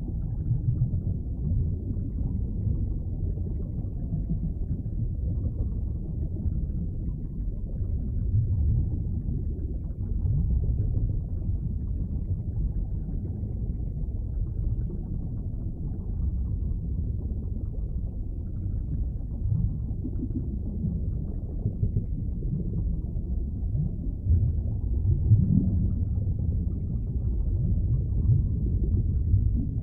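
Underwater ambience: a deep, muffled, steady rumble of water with nothing high-pitched in it, swelling slightly louder now and then.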